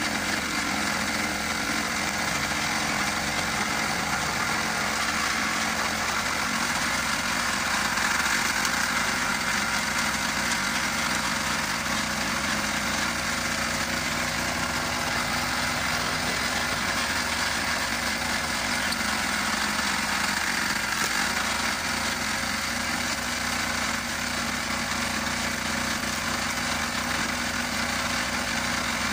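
Walk-behind tractor engine running steadily at constant speed, turning a homemade screw-cone log splitter fitted in place of a wheel while logs are pushed onto the cone.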